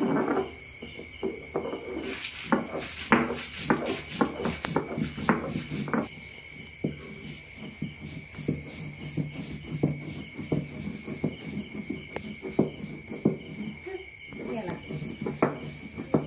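Dried red chillies and salt being crushed and ground by hand with a stone roller on a flat grinding stone (ammikkallu): irregular knocks and crunching scrapes, a few a second, with a brief pause near the end.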